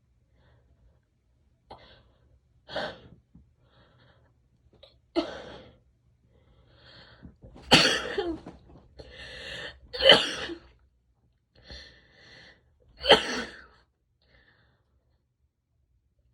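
A woman sneezing over and over, with smaller breath bursts between; the strongest sneezes come about eight, ten and thirteen seconds in.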